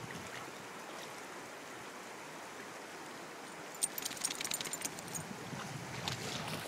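Shallow river running over rocks and riffles: a steady rush of water. About four seconds in, a quick run of sharp clicks lasts for about a second.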